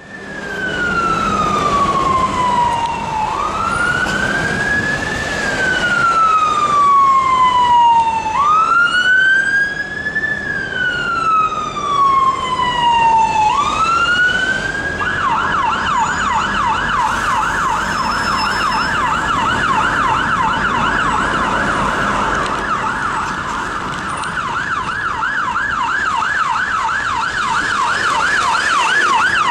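Emergency siren on a London Fire Brigade VW Transporter fire investigation van responding: a slow wail sweeping down and up, which switches about halfway through to a fast yelp, about three cycles a second, over city traffic.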